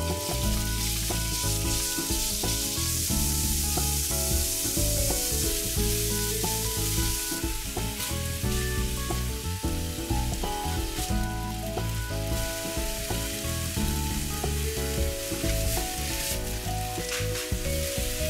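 Ground pork and slivered burdock root and carrot sizzling in hot sesame oil in a nonstick frying pan while a plastic spatula stirs them. The sizzle is steady, a little weaker in the middle and stronger again near the end.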